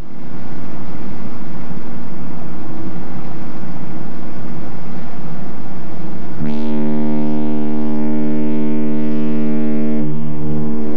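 A ship's horn sounds one long, steady, deep blast, starting suddenly about six seconds in and held to the end. Before it there is a steady noisy rumble with faint low tones.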